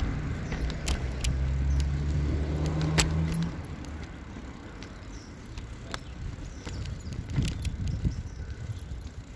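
Bicycle rattling and clicking as it rides over the joints of a paving-slab footpath, with a low steady hum for the first three and a half seconds that cuts off suddenly.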